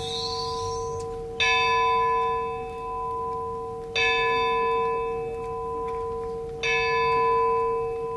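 Clock bell of a monastery bell tower striking the hours: one bell struck three times, about two and a half seconds apart. Each stroke rings on with a long, steady hum.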